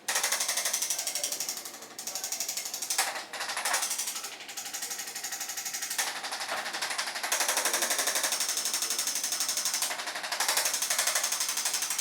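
A handheld electric percussion instrument tapping rapidly on the body: a fast, even mechanical rattle that comes in several runs with short pauses between them.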